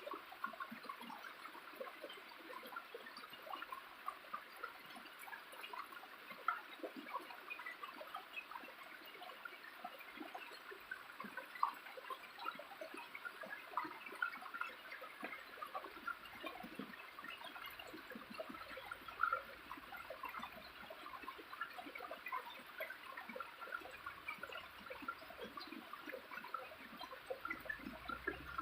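Small waterfall running steadily, with water trickling and splashing, full of little droplet splashes.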